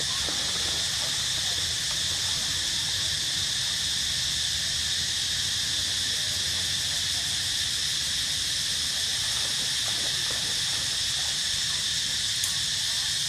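Steady, high-pitched insect chorus from the forest, unbroken and even throughout.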